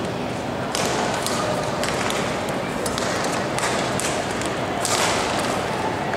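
Badminton rackets striking a shuttlecock during a rally: a string of sharp hits, roughly one a second, over the steady murmur of spectators in a large hall.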